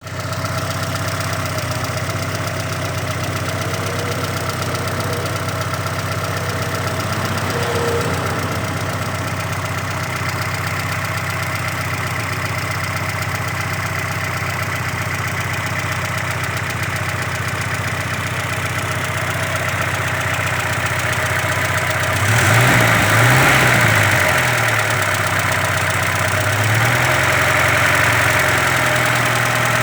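Audi 80's 1.8-litre four-cylinder petrol engine idling steadily with a knock that the owner cannot place, revved up and let back down twice in the last several seconds.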